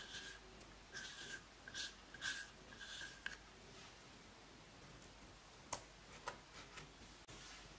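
Pink plastic spatula scraping makeup out of a small jar: a quick run of short scrapes in the first three seconds or so, followed by a few light clicks later on.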